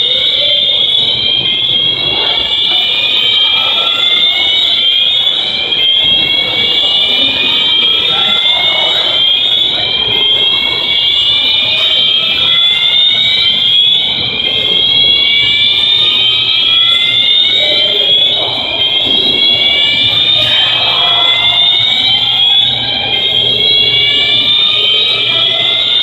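Building fire alarm sounding continuously, a loud siren-like tone that sweeps upward in pitch over and over, with a murmur of people beneath.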